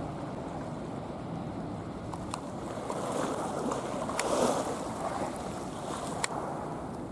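Sea water washing against a concrete seawall, with wind on the microphone; a wave surges louder about halfway through, and there are three sharp clicks.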